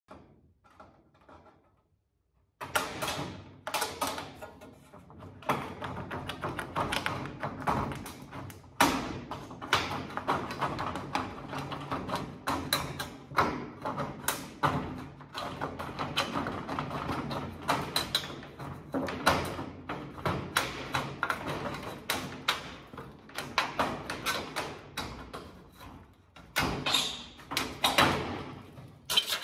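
Ribbed steel soffit panel being cut with hand snips and handled: irregular sharp snips, taps and metal clatter starting about two and a half seconds in, with background music under them.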